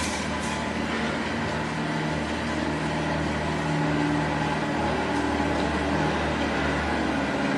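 16 oz gas popcorn machine running with its kettle stirrer turning and the burner on high flame: a steady mechanical hum under an even hiss. The corn is heating in the oil but not yet popping.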